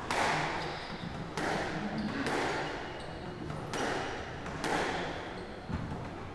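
Squash rally: the ball is struck by rackets and hits the court walls, about six sharp strikes a second or so apart, each ringing in the enclosed court.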